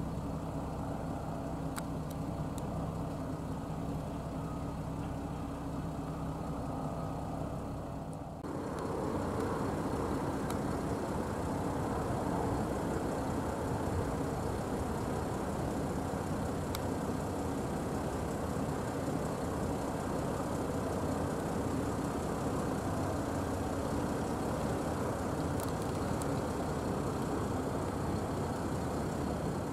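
Brantly B-2B helicopter's four-cylinder Lycoming piston engine and rotor running steadily in flight, heard from the ground. About eight seconds in the sound changes abruptly to a louder, noisier one that then holds steady.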